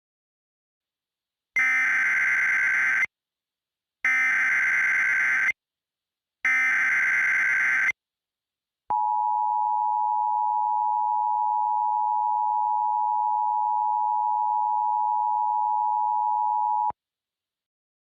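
Emergency Alert System header: three short bursts of harsh digital data tones (the SAME header), evenly spaced, then the steady two-note EAS attention tone held for about eight seconds. The tones signal the start of an emergency alert broadcast.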